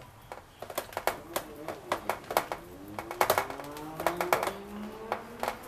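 Fingers pressing and dimpling wet focaccia dough in a metal baking pan: an irregular run of soft taps and sticky clicks, several a second.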